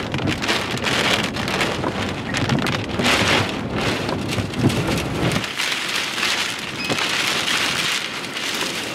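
Heavy wind-driven rain pelting a vehicle, heard from inside as a tornado passes close by. It comes in surging gusts full of small hits on the glass and body. The low wind rumble drops away a little past halfway.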